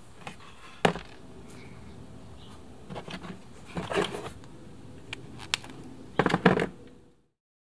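Scattered clicks and knocks of small hard plastic model parts being handled and fitted together, over a steady low room hum.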